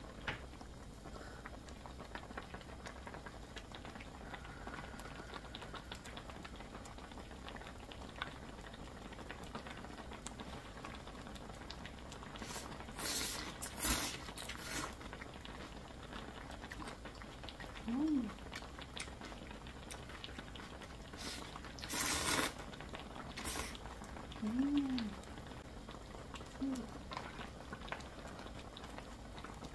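Ramyeon noodles slurped loudly in two bouts, about halfway through and again around two-thirds in, with a few short low hums of 'mm' between them. Under it all is a faint steady bubbling of the broth simmering in a pan on a portable gas stove.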